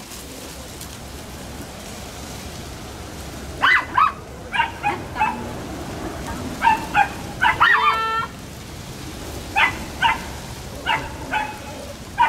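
Dogs barking in short, sharp yips as they play-wrestle, starting after a few seconds and coming in quick pairs and runs, with one longer pitched yelp about eight seconds in.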